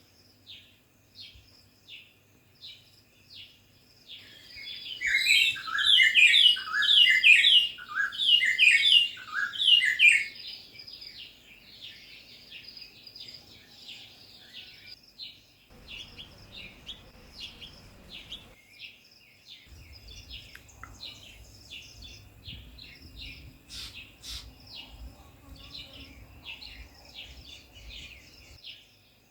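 Garden birds chirping: a steady run of short, high chirps, with a loud burst of rapid, falling chirps from about five to ten seconds in.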